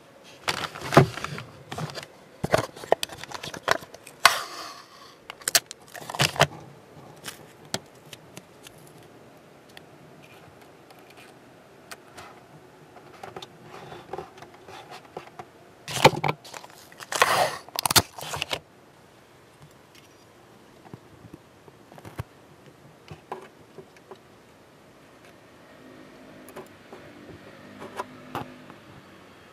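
Masking tape being pulled, handled and pressed down onto a plastic model hull: noisy bursts of rustling and crackling in the first few seconds and again at about sixteen to eighteen seconds, with light clicks and taps between.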